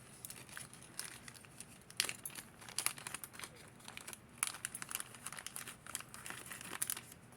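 Packaging crinkling as it is handled, in irregular light crackles and small clicks.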